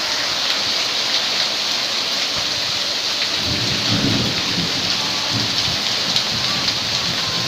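Hail and heavy rain pelting down: a dense steady hiss full of many small sharp hits. About two and a half seconds in, a low rumble joins it.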